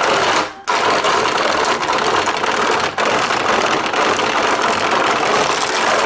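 Plastic crank of a toy Chicken McNugget Maker turned fast, its mechanism rattling steadily as it crushes cereal into crumbs. The rattling breaks off twice, briefly, about half a second in and again about three seconds in.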